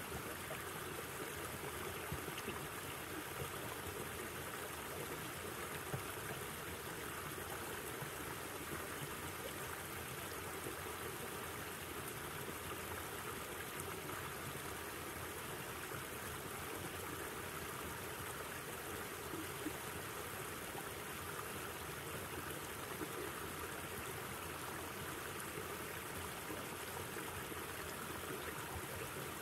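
River water flowing, a steady rushing with a few brief faint ticks.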